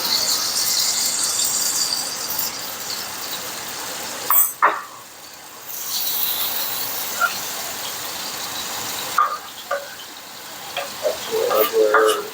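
Onions and vegetables sizzling in bacon grease in a frying pan: a steady hiss, with a few sharp clicks near the end.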